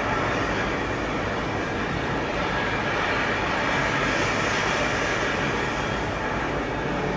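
Steady, even rushing noise with a low rumble and no clear pitch.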